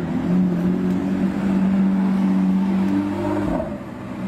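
Lamborghini Aventador's V12 engine running at low speed as the car drives slowly past, a steady engine note that breaks and drops briefly about three and a half seconds in before picking up again.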